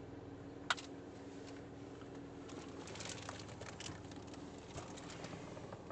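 Handling noise from a mirror-type dash cam being fitted: a sharp click about a second in, then a run of light clicks and rustles, over a steady low hum.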